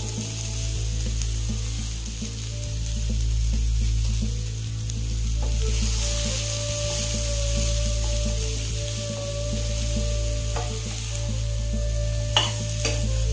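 Boiled chickpeas sizzling as they fry in oil and tempering in a stainless steel pan, stirred to sauté them. The sizzle swells in the middle, and near the end a metal spoon gives a few sharp clinks against the pan.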